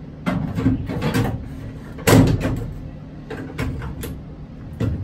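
Plastic ELT unit knocking and clattering against its metal mounting tray as it is set in and strapped down: a run of quick knocks, one loud clunk about two seconds in, more rattles later and a last sharp knock near the end.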